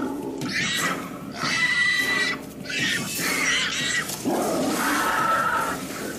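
A series of loud animal calls, several in a row separated by short gaps, some with a steady pitched tone running through them.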